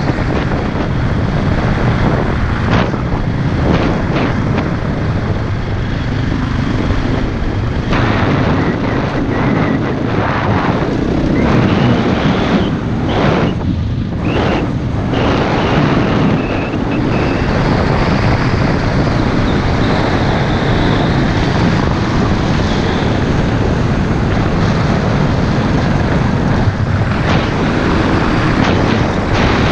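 Off-road motorcycle engine running under way, with wind rushing over the microphone. The engine note dips and surges a few times around the middle.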